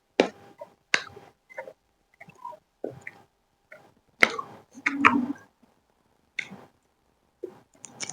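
Close-up mouth sounds of chewing chicken chowmein: irregular wet smacks and clicks, with a louder cluster about four to five seconds in.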